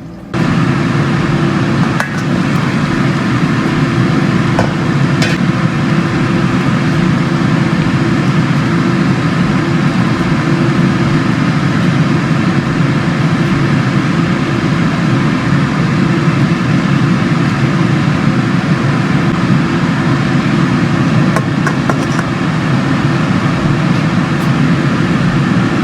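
A loud, steady low rumble, with a few faint clicks about two and five seconds in.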